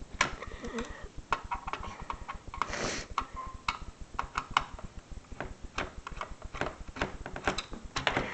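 Irregular plastic clicks and taps from hands working on the case of an Esky radio-control transmitter as its back is unscrewed and lifted off, with a brief scrape about three seconds in.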